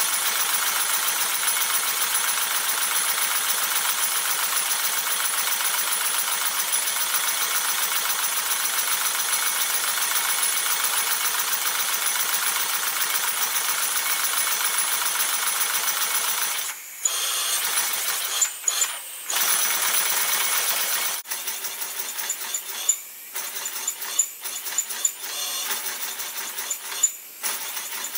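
Homemade single-cylinder model steam engine running fast on compressed air, a rapid, even mechanical clatter from its piston, valve and flywheel. After about 17 seconds it falters, with several brief drop-outs and a few sharp clicks.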